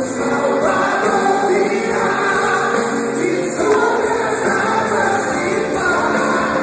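Contemporary gospel worship song: voices singing together over a full band.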